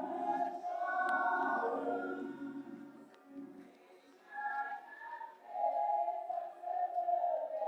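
A group of voices singing together, unaccompanied, in long held notes. They sing a phrase, pause briefly a little after three seconds, then sing on.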